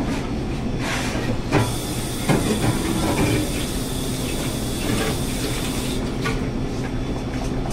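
Steady whooshing hum of a kitchen ventilation fan, with a few light knocks in the first couple of seconds.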